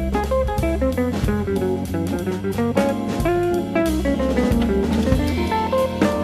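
Jovial background music: a plucked-string melody over a steady bass line and a drum kit.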